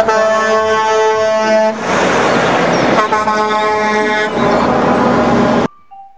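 Semi-truck air horn blowing two long blasts, the first about two seconds and the second shorter, over the running noise of a passing truck. The sound cuts off suddenly near the end.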